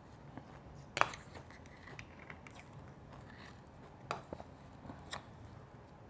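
Metal spoon scooping through shaved ice in a stainless steel bowl: scattered sharp crunches and scrapes of ice, the loudest about a second in and a few more later on.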